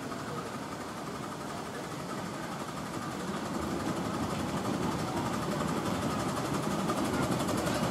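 A 7¼-inch gauge miniature steam locomotive hauling a passenger train, its exhaust chuffing quickly over the rumble of wheels on rail, growing steadily louder as it approaches.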